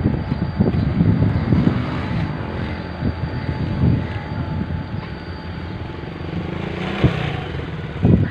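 Diesel shunting locomotive's engine running steadily as it moves slowly through the yard, with irregular low knocks and rumble over the engine drone.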